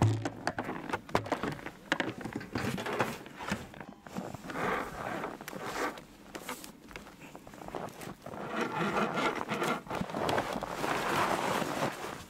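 A plastic barrel set down on a wooden sledge with a low thump at the start, followed by clicks and rustles of rope and clothing being handled. From about eight seconds in, a denser crunching and scraping of packed snow as a block of snow is cut and lifted.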